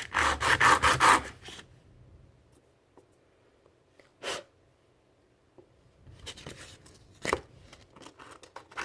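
Sandpaper rubbed by hand over a small model rifle magazine: quick back-and-forth scraping strokes for about the first second, then a pause broken by a light knock and a sharp click as the part is handled.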